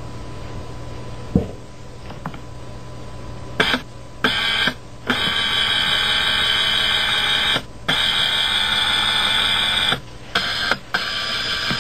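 A faint steady hum and a single click, then, about three and a half seconds in, a loud high alarm-like buzzing tone. It goes on in stretches of one to two and a half seconds with short breaks.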